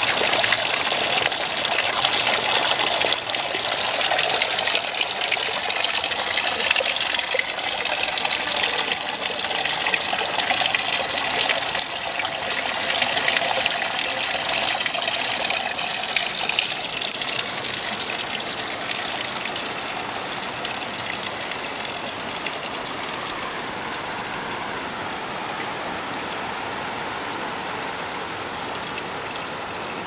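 Water pouring from the pipe spouts of a stone spring fountain into a water-filled stone trough: a steady splashing gush. It becomes softer and more even from about two-thirds of the way through.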